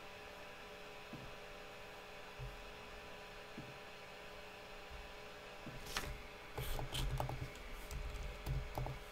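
Low steady electrical hum, joined from about six seconds in by an irregular run of computer keyboard typing clicks.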